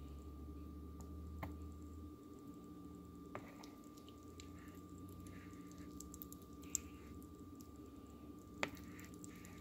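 A few sharp, faint clicks and soft wet squishes from clumps of cooked potato pasta in a plastic colander, over a steady low hum.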